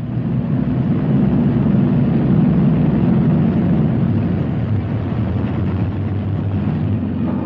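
Motor boat engine running with a steady low rumble, swelling in over the first second or so.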